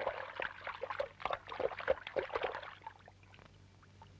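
River water splashing and sloshing in quick, irregular bursts as a small animal flounders after falling in; the splashing dies away about three seconds in.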